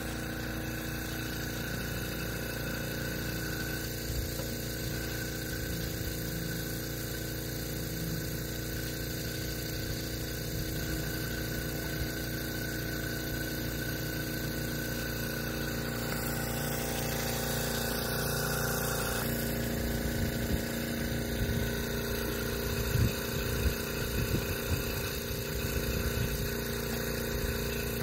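Hookah dive compressor running steadily with an even drone, supplying air to the diver's hose. A few light knocks come in during the later part.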